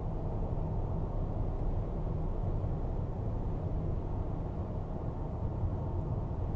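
Steady low road and engine rumble of a car cruising at highway speed, heard from inside the cabin, muffled and even.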